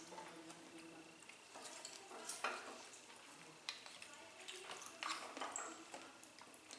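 Eating utensils scraping and clinking against dishware in a handful of short, separate strokes.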